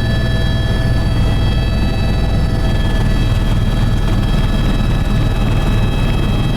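Helicopter's turbine engine and rotor running steadily, heard from inside the cabin: a loud, even low rumble with a steady high whine over it.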